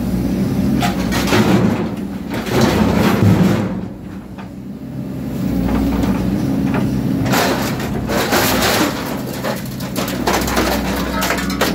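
Excavator's engine and hydraulics running steadily while its scrap shear attachment grabs and cuts metal roo bars, with repeated metallic clanks and knocks. There is a quieter lull around four to five seconds in before the clanking picks up again.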